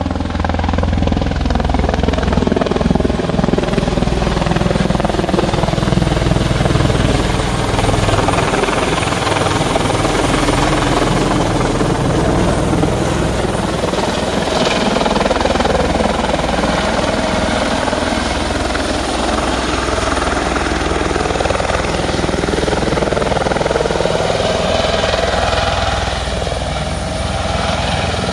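Eurocopter EC120 Colibri helicopter flying overhead and descending to land, its main rotor and turbine running loud and steady. The pitch of the engine hum shifts slowly as it turns and comes down, and the sound eases slightly near the end as it settles into a hover just above the ground.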